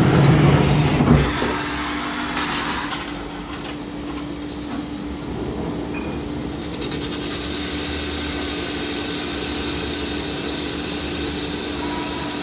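Portable line boring machine running with a steady hum. There is a louder rough noise in the first second, and a brighter hiss comes in about halfway and holds.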